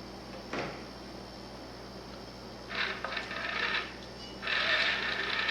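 Remote-controlled cat exerciser toy running in two short spells of whirring and rattling, about three seconds in and again near the end, after a single click about half a second in.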